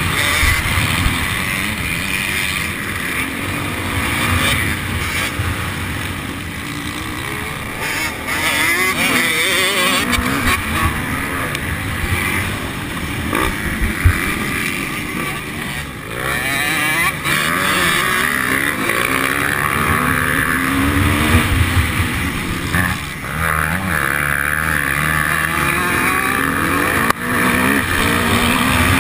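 Motocross dirt bike engine heard from on board, revving up and falling back again and again as it goes through the gears at race pace, with other dirt bikes' engines around it and a rumbling low buffeting on the microphone.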